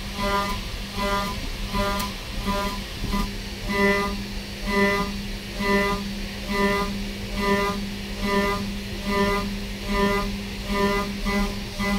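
Background music: string instruments playing a repeating, pulsing figure of pitched notes at an even rhythm, over a steady low hum.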